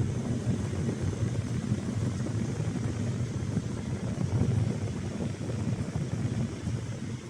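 Air from a Daikin FTC35NV14 split air conditioner's outlet buffeting the microphone: an uneven low rumble that starts suddenly and drops away at the end, over the unit's steady fan hiss.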